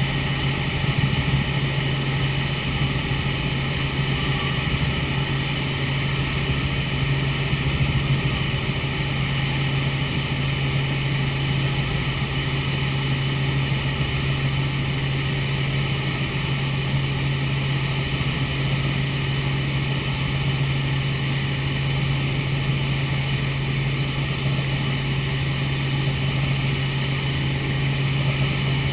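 Robinson R44 Raven II helicopter in flight, heard inside the cabin: its six-cylinder Lycoming piston engine and rotors running evenly, a strong steady low hum over a constant hiss.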